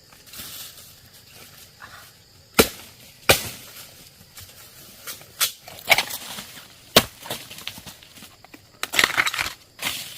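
A string of sharp cracks and snaps: a few single ones spaced a second or more apart, then a quick rattle of them near the end.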